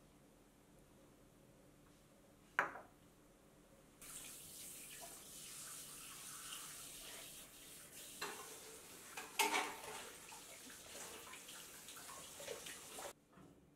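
A single sharp clink in a quiet room, then, a few seconds in, a kitchen tap running into a sink as dishes are washed by hand, with several clinks of plates and dishes. The running water stops shortly before the end.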